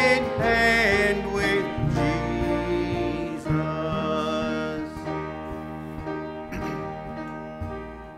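Church hymn music: piano and acoustic guitar accompanying congregational singing, the voices clearest in about the first second before the instruments carry on.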